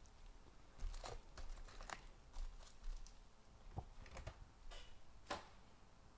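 Faint crinkling and rustling of trading-card pack wrappers and cards being handled, with a few light ticks scattered through.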